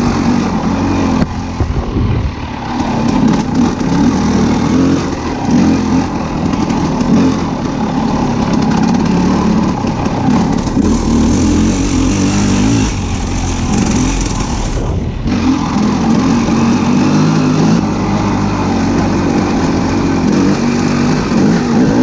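A motor vehicle's engine running, its pitch wandering up and down.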